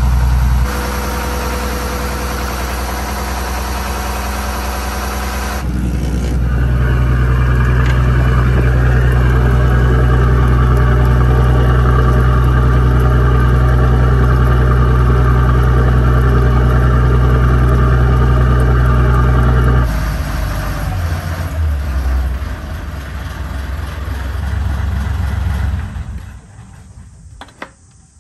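Yanmar marine diesel engine idling steadily. For a stretch in the middle it is heard close at the stern, with cooling water gushing and splashing from the outlet pipe into the sea. The engine sound dies away near the end as it is shut down.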